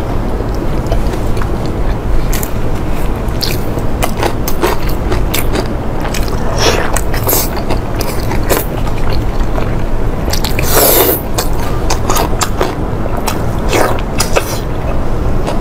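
Close-miked mouth sounds of someone eating black stinky tofu in chili sauce: wet biting, chewing and lip smacks in an irregular run of short clicks, over a steady low hum.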